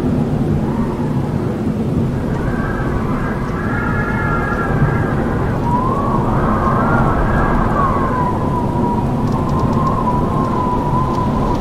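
Howling wind: a steady, loud low rumble with a whistling howl that rises and falls in pitch, swelling about halfway through and then holding a wavering note.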